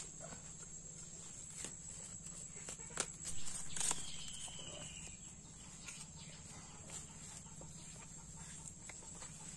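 Rustling and scattered knocks as taro plants are handled and their base dug at by hand, loudest around three to four seconds in. Under it runs a steady high-pitched whine and a low hum, with a brief falling animal call about four seconds in.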